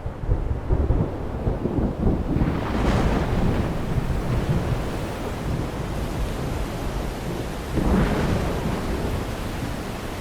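Thunder rumbling over steady rain. The rumble swells about a second or two in and again near the end.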